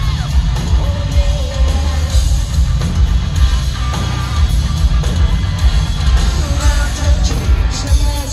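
Hard rock band playing live: distorted electric guitar, bass and pounding drums, with a sung vocal line over them.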